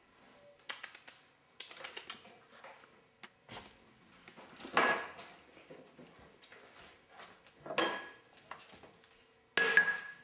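Irregular clinks and knocks of dishes and objects on a wooden dining table as a cat moves among them, each knock ringing briefly; the loudest come about five, eight and ten seconds in.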